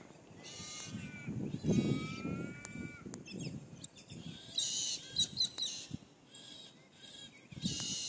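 A raven calling, with two drawn-out cawing calls in the first three seconds, then a quick run of high bird chirps about halfway through and again near the end.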